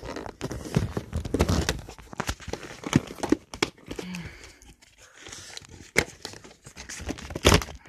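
Irregular rustling, scraping and clicks from handling a boxed wrestling action figure's packaging as it is struggled open, with bumps from the handheld camera being jostled and a couple of sharper knocks near the end.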